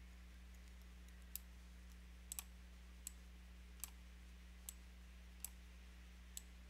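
Computer mouse clicking: quiet, sharp single clicks about once a second, with one quick double click, over a faint steady electrical hum.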